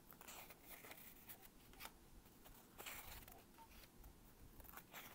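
Faint rustling and a few soft taps of paper sheets being handled and turned over.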